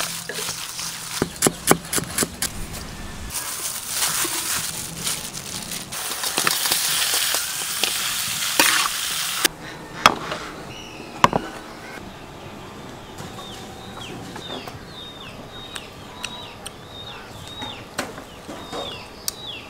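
A sequence of cooking sounds: clicks and knocks of handling food, then duck meat sizzling as it cooks for about six seconds, cutting off suddenly. A couple of sharp knocks follow, and a bird chirps repeatedly in short falling notes near the end.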